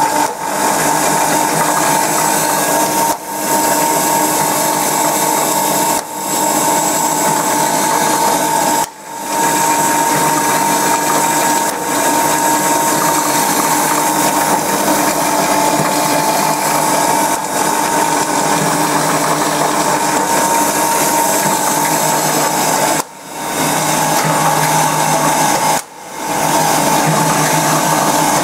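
Automatic welded wire mesh roll machine running: a loud steady mechanical drone with a high whine, dropping briefly every few seconds as the machine cycles.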